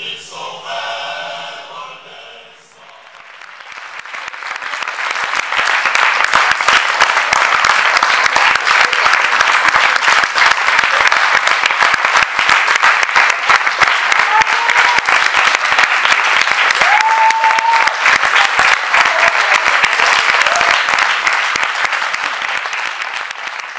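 Voices singing together for about two seconds, then an audience applauding: the clapping swells in, holds steady and thick, and begins to fade near the end, with a couple of brief calls from the crowd in the middle.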